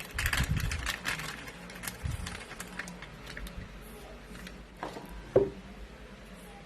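Plastic clicking and rattling from handling the top-loading washing machine's softener dispenser and bottle, busiest in the first couple of seconds, with a sharp knock about five and a half seconds in.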